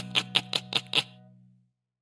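Background music: a quick run of repeated chords, about five a second, over a held low note. It ends about a second in and fades to silence.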